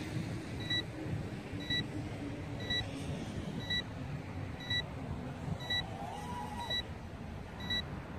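An RC transmitter's timer alarm beeping: short high electronic beeps, about one a second, signalling that the set flight time is up. They sound over a low background rumble.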